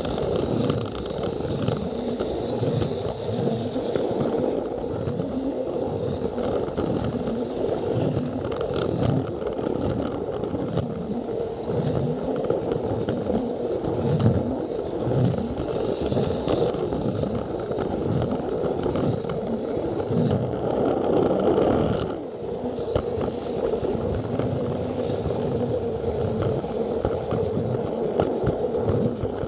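Plarail toy train running on plastic track: a steady whine from its small battery motor and gears, with the plastic wheels rattling and clacking irregularly over the track joints, heard close up from a camera riding on the train. Briefly quieter about three quarters of the way through.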